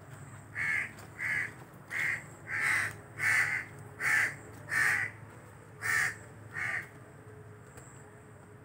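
A crow cawing: a series of nine harsh caws, seven at an even pace of about one every two-thirds of a second, then a short pause and two more.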